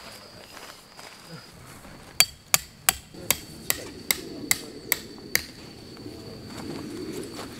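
Hammer driving a tent stake into the ground to anchor a guy line: nine sharp, ringing strikes at about three a second, stopping about two-thirds of the way through.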